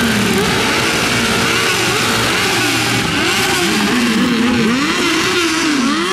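Cruiser motorcycle engine revved up and down again and again, its pitch rising and falling in quick arcs, the throttle worked to make the engine 'sing' a tune.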